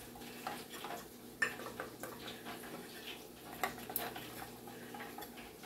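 Fried chicken wings being shaken in ranch dressing inside a lidded bowl: soft tumbling, with a few faint clicks and knocks from the lid and bowl.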